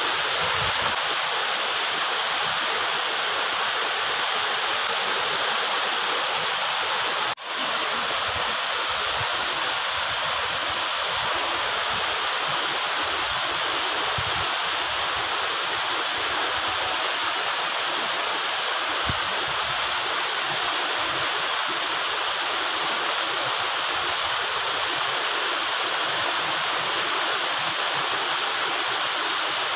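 Steady rush of falling water from a waterfall, unbroken except for a momentary dropout about seven seconds in.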